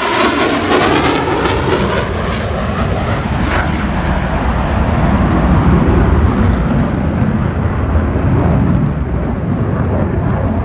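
Two military jet fighters flying past: loud jet-engine roar. In the first couple of seconds the pitch of the roar sweeps as they pass, then it settles into a deep, steady rumble.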